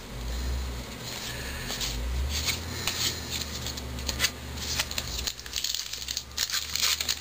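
Topps 206 baseball cards being flipped and shuffled through by hand, with short clicks and scrapes of card stock rubbing and tapping against card, over a low rumble that fades out about five seconds in.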